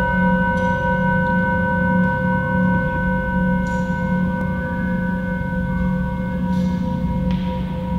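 Sound-installation drone: several steady, pure, high tones held together over a low, pulsing hum. One of the middle tones drops out near the end.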